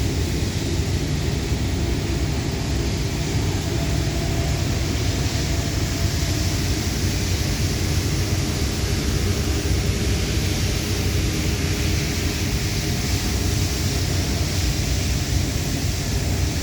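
TIG welding on Inconel tube: an even hiss over a loud, steady low rumble, with a faint steady whine.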